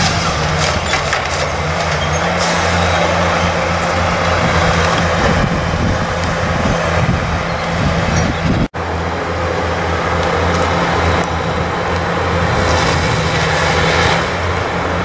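Heavy diesel engines of logging machines, a harvester and a log forwarder, running steadily with a deep engine hum. The sound drops out for an instant about nine seconds in.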